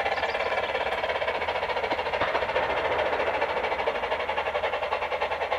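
Sound card in a G-scale Bachmann three-cylinder Shay model locomotive playing fast, even steam chuffing through its onboard speaker as the radio-controlled model runs along the track.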